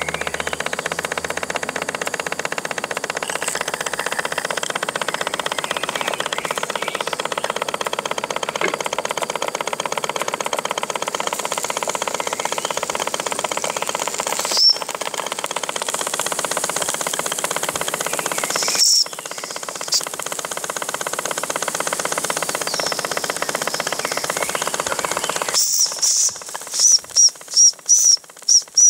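A small 1930s model steam engine running steadily with a fast, even beat, fed by the boat's live-steam boiler. Near the end the engine sound stops and a quick series of short, high-pitched chirps follows.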